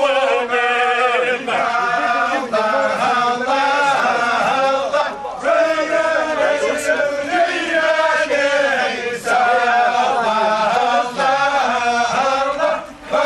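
Many men's voices chanting together in one unbroken, steady funeral chant.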